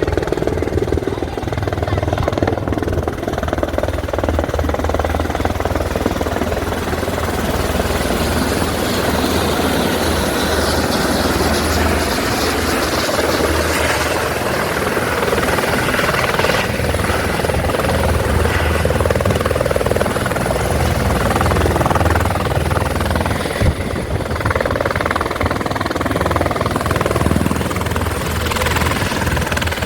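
Helicopter running steadily in flight: a dense, even rotor and engine noise, strongest low down, with a thin high whine held over it.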